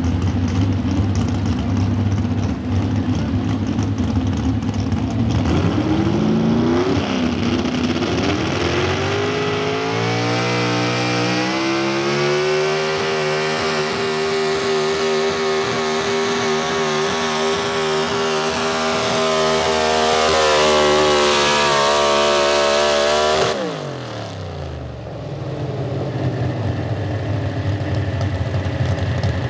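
Pro Stock 4x4 pulling truck's big-block V8, on a single four-barrel carburetor, running at low revs, then climbing in pitch and held at full throttle for about eleven seconds as it drags the weight-transfer sled. Near the end the throttle is cut, the pitch drops sharply and the engine falls back to idle.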